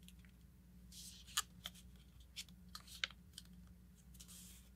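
Faint paper rustling and a scattered series of light ticks as a sheet of letter/A4 paper is folded and creased by hand, over a low steady hum.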